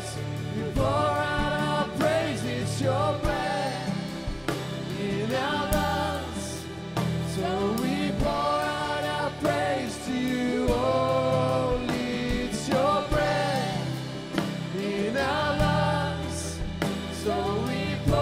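Live contemporary worship band playing, with drums under long sung vocal lines.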